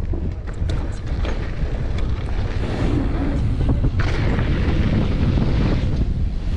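Wind buffeting an action camera's microphone as a mountain bike rolls fast down a dirt jump line, with tyre rumble on the loose dirt. A few sharp clicks and rattles come in the first second or so, and the rushing noise grows stronger from about halfway through as speed builds.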